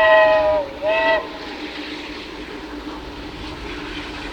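Steam locomotive whistle from BR Standard Britannia 70000: a long blast that sags in pitch as it closes just under a second in, then one short second blast. After that only a steady, quieter rushing noise remains.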